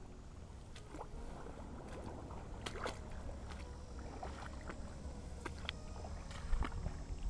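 Shallow creek water splashing and trickling in irregular small splashes, as from someone wading, over a steady low rumble.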